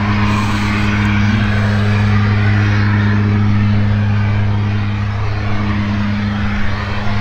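Light aircraft's piston engine and propeller running at a steady speed: an even, loud drone.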